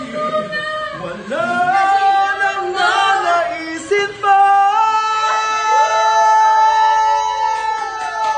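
A singer belting a melody, short phrases at first, then a long high note held from about halfway through.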